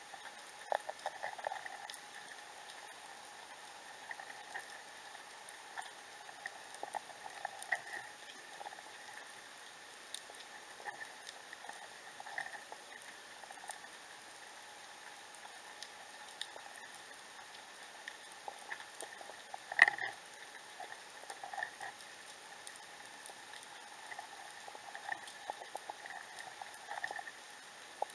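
Underwater sound picked up by a submerged camera: irregular small clicks and crackles over a steady hiss, with one louder knock about twenty seconds in.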